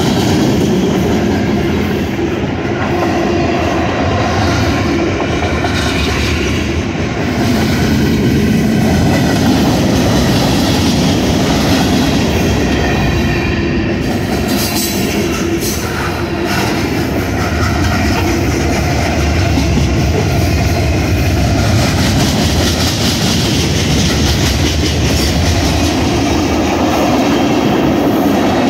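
CSX freight train cars rolling past close by: a steady, loud rumble with the clatter of wheels over the rails.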